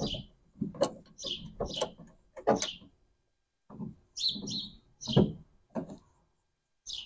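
Short squeaks and creaks in an uneven series, about one or two a second with a pause near the middle, from C-clamps being worked and tightened onto a truck-bed rail.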